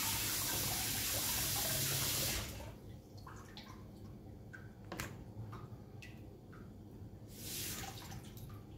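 Kitchen tap running into the sink as fish is rinsed under it. The tap is shut off after about two and a half seconds, followed by a few small knocks of handling in the sink, the sharpest about five seconds in. The tap runs again briefly near the end.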